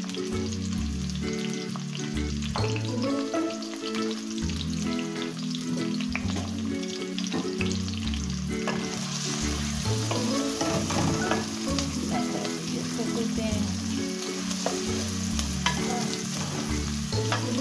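Sliced onion and garlic sizzling in hot oil in an aluminium karahi, being lightly sautéed rather than browned. The sizzle grows louder about halfway through as a wooden spoon stirs and scrapes the pan. A low background tune plays underneath.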